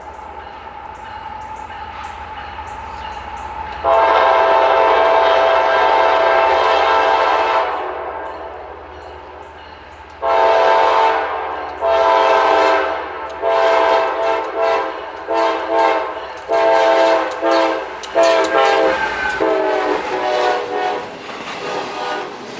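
Multi-chime air horn of the train-horn type sounding a chord. It is fainter at first, then gives one loud long blast about four seconds in, then a quick string of about a dozen short blasts.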